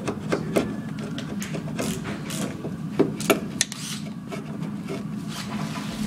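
Wooden bungs being chopped off a boat's planking with a chisel: sharp, irregular taps and cracks, a few close together, over a steady low hum.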